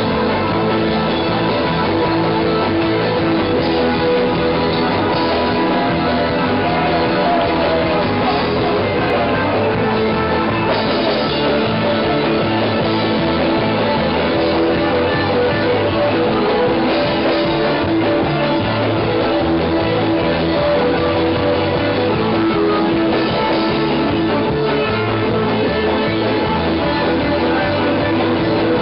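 Live band playing loud psychobilly-jazz-punk music, dense and unbroken.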